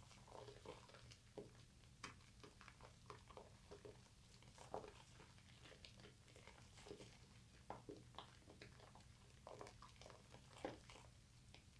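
Hands lathering a bar of soap into thick foam: faint, irregular wet squishing and crackling of the lather as it is squeezed and rubbed.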